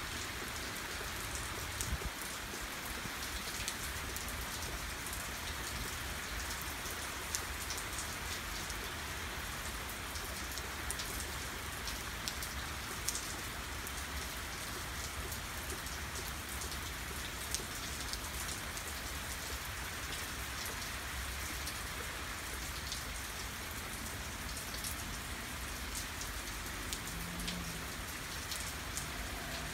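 Heavy rain falling steadily, with scattered sharp taps of drops striking close by.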